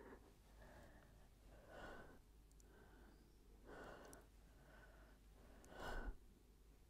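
A woman's faint, effortful breathing during repeated crunches: a short, forceful exhale about every two seconds with quieter breaths between, the loudest one near the end.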